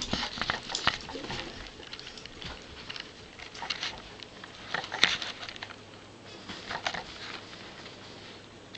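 Light, irregular pattering and tapping as a corgi puppy scampers about on carpet, with a sharper tap about five seconds in.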